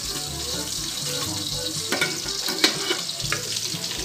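Pork pieces frying in oil in an aluminium wok, a steady sizzle, with a few short metallic clicks as the lid is lifted off with a knife.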